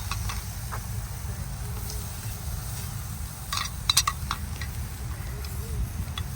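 Wild hog backstrap sizzling on a charcoal grill while being basted with butter, with scattered crackles over a steady low rumble. A cluster of sharp clicks about four seconds in is the loudest moment.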